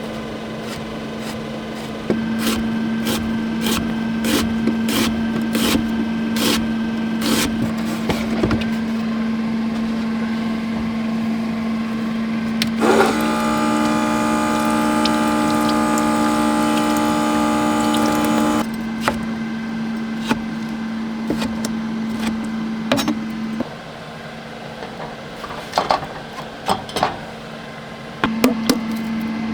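Kitchen knife chopping on a cutting board in sharp knocks, about two a second for several seconds, with a few more near the end, over a steady low hum. Midway, a steady pitched tone sounds for about five seconds and cuts off suddenly.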